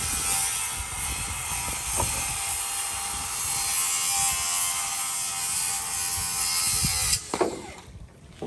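A motor running steadily with a high whine over a noisy drone, cutting off suddenly about seven seconds in, after which it is much quieter.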